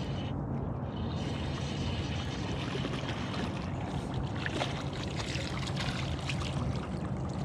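Water washing and lapping against a small aluminium fishing boat's hull, with a steady low hum underneath.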